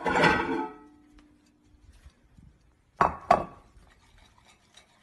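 A dog's food bowl clanks and rings at the start, dying away to one held tone after about a second. About three seconds in come two sharp clinks as it is set down on the tile floor, followed by faint ticking as the dog eats.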